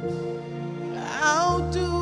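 Slow gospel worship song: sustained keyboard chords, with a woman's voice coming in about a second in on a held note with vibrato, and a deep bass note joining shortly after.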